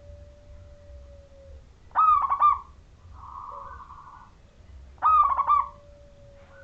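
Zebra dove (perkutut) cooing: two loud phrases of three or four quick, ringing coos, about three seconds apart, with fainter whistled tones between them.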